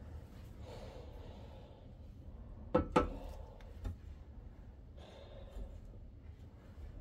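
A thunderegg rock being set down on the metal table of a lapidary slab saw: two sharp knocks in quick succession about three seconds in, then a lighter knock about a second later.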